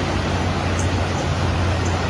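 Steady roar of fast-flowing floodwater, an even rushing noise with a constant low rumble beneath it.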